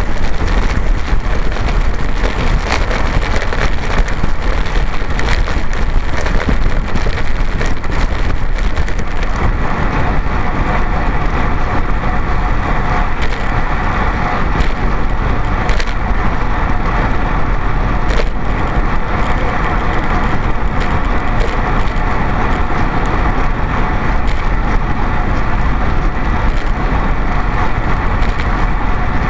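Wind rushing over the microphone of a camera mounted on a racing bicycle riding at speed, with tyre noise from the road and frequent rattling clicks from the mount over the rough surface. About ten seconds in, a steady hum with several tones joins the noise.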